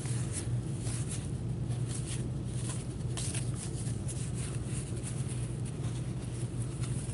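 Soft rustling and light clicks of trading cards being shuffled and slid by gloved hands, over a steady low hum.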